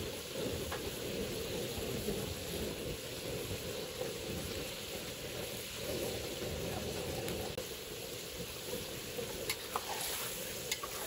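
Squid, shrimp and scallops frying in a wok with a steady sizzle. A few clicks of a metal spatula against the wok come near the end as the seafood is stirred.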